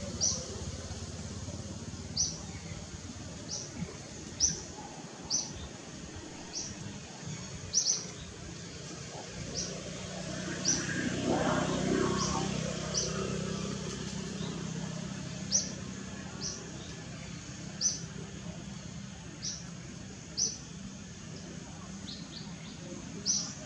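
A small bird chirping over and over, short high chirps about one a second, over a steady low background hum. About eleven seconds in, a broader noise swells and fades.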